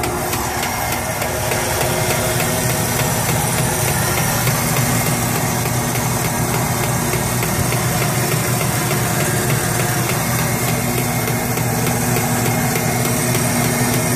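Homemade chicken plucker driven by a washing-machine motor, running steadily at reduced speed with a constant mechanical hum and rattle.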